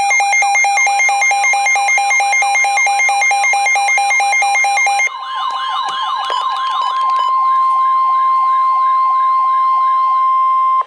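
Emergency alert tones that announce a weather radio warning. A rapidly alternating electronic alarm tone plays for about five seconds. Then a siren wails up and down over a steady single alert tone near 1 kHz, the NOAA Weather Radio warning alarm, which cuts off suddenly at the end.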